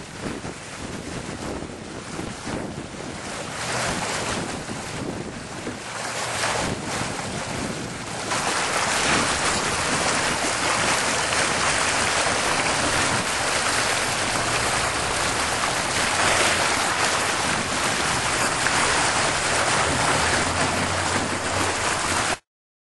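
Water rushing out of a concrete culvert into a drainage ditch, with wind buffeting the microphone. The rushing grows louder and steadier about eight seconds in and cuts off suddenly just before the end.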